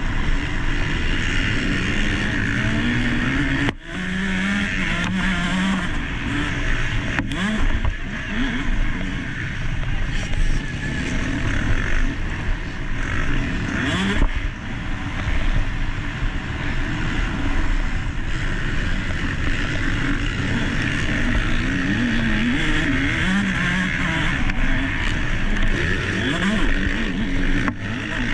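Motocross dirt bike engine revving hard and backing off over and over as it is ridden round the track, heard close-up from an onboard camera with a dense rushing noise over it. The throttle cuts out for a moment a few times, sharply once about four seconds in and again near the end.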